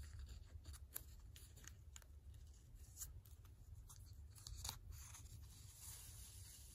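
Faint scattered ticks and rustles of paper and thread as a needle is worked through the pages of a hand-sewn Coptic-stitch book and the thread is drawn through, over a low steady hum.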